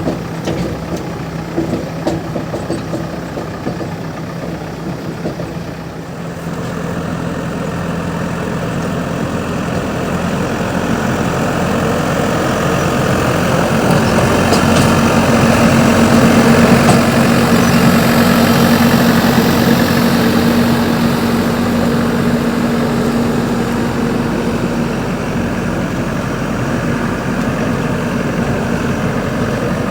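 JCB 3DX backhoe loader's diesel engine running steadily, then rising in revs and loudness from about a fifth of the way in, peaking past the middle and easing off slightly toward the end.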